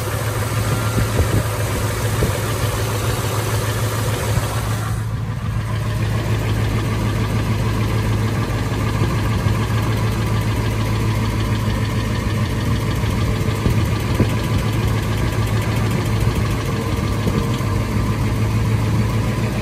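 Car engine idling with a light, rapid ticking from the hydraulic valve lifters (hydraulic tappets), still there despite a Liqui Moly lifter anti-noise additive; the owner thinks the lifters may be mechanically worn.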